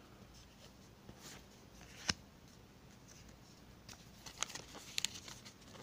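Stickers being handled: one sharp tap about two seconds in, then a few light clicks and rustles of paper near the end.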